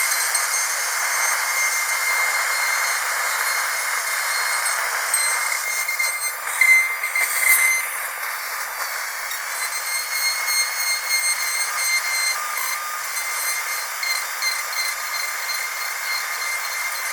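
Dental drill whining steadily at a high pitch over a hiss, with a brief louder, rougher stretch about six to eight seconds in.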